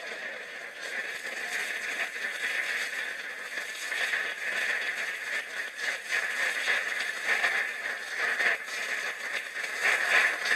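Audience applause: dense, rustling clapping that swells slightly toward the end.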